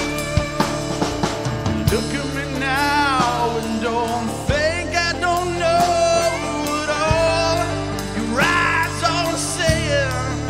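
Live rock band playing: drum kit, electric guitar and sustained chords, with a lead melody line that bends and wavers over the top.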